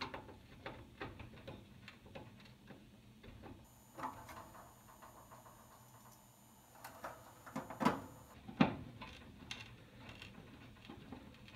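Light ticking and clicking of screws being driven and tightened to mount an oven's display circuit board, with two louder knocks a little past the middle.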